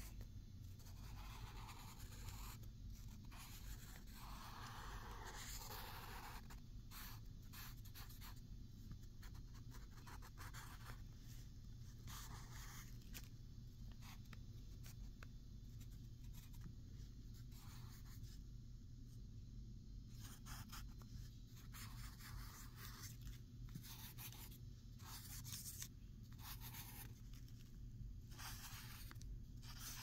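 Pen tip scratching across lined paper in stop-start strokes, some short and some a second or more long, over a faint steady low hum.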